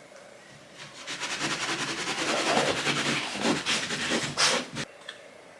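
Microfiber towel scrubbing a painted wall in rapid rubbing strokes: a dense, fluttering hiss starting about a second in and stopping sharply near the end.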